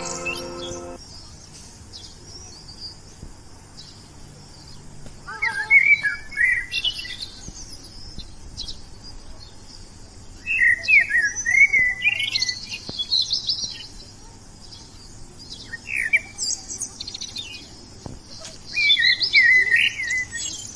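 Songbirds singing in short bursts of quick, warbling chirps every few seconds, over a steady high hiss.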